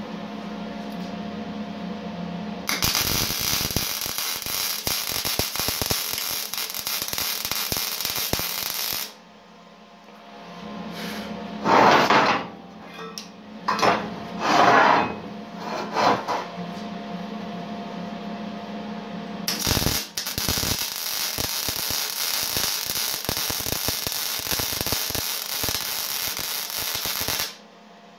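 Two MIG welds from an Eastwood MIG 175 welder on 1/8-inch-wall square steel tubing, each a steady crackling arc lasting several seconds, the second starting about halfway through. Between them, a few short, louder handling noises as a spring clamp is repositioned on the frame.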